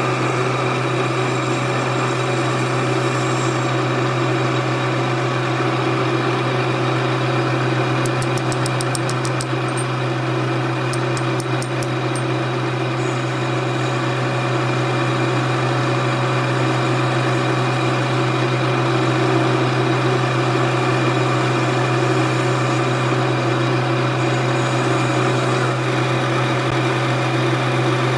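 A workshop machine's motor running with a steady hum, with two short runs of fast, light ticking partway through.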